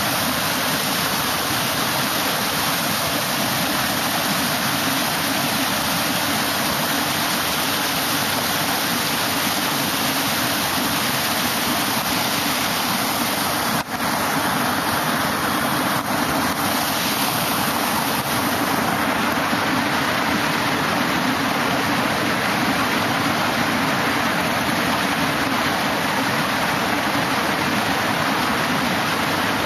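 Steady rush of water pouring and churning down the stepped concrete weirs of a fish ladder.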